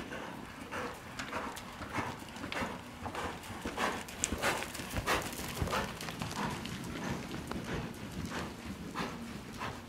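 Hoofbeats of a ridden horse moving in a steady rhythm over the sand footing of an indoor arena, loudest about four to five seconds in as the horse passes close.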